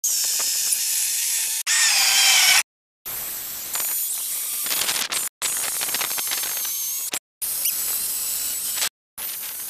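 Battery-powered electric chainsaw running and cutting through a cherry log: a high motor whine over the hiss of the chain in the wood, the pitch shifting as it bites. The sound breaks off abruptly a few times.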